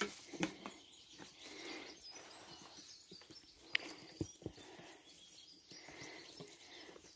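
Faint footsteps and scattered knocks of hikers walking down wooden steps, with faint bird chirps in the background.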